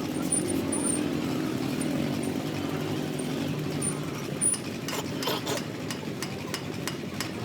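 An engine running steadily, with a cluster of sharp clicks about five seconds in.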